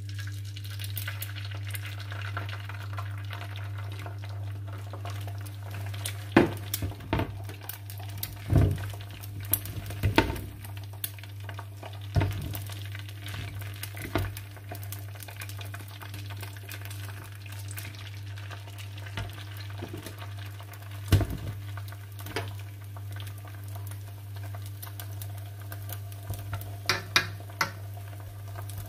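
Egg white with diced tomato and spring onion frying gently in an oiled nonstick griddle pan over low heat, with a fork clicking and scraping against the pan now and then. A steady low hum runs underneath.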